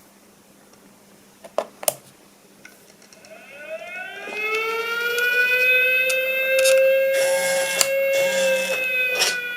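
Two sharp clicks, then an air-raid siren sound effect winding up from low to a high, held wail, played through the Arduino useless box's small speaker.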